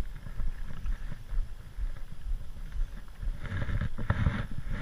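Wind rumbling on a small action-camera microphone. About three and a half seconds in there is a louder burst of splashing lasting about a second, as a hooked fish thrashes at the surface.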